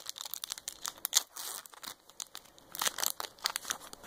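Foil wrapper of a Pokémon trading card booster pack crinkling in the hands as it is torn open, in irregular crackly bursts, the busiest about a second in and again near three seconds.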